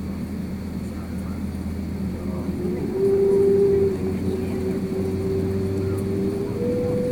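Airbus A350 cabin noise while taxiing: a steady low hum from the Rolls-Royce Trent XWB engines at idle. A steady whine joins about two and a half seconds in and steps up in pitch near the end.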